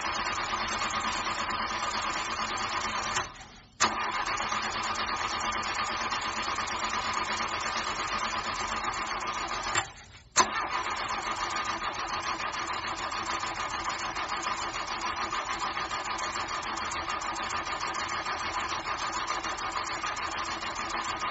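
Car starter cranking the engine over and over without it catching: the engine won't start. The cranking stops briefly about three seconds in and again near ten seconds, each time resuming with a sharp click.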